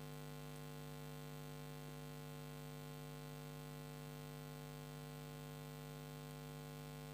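Faint, steady electrical hum in the recording: a low buzzing tone with evenly held overtones over light hiss, unchanging throughout.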